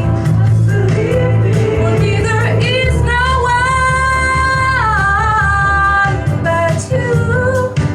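Song playing: a singing voice over a steady bass line, holding one long note through the middle, which steps down partway through.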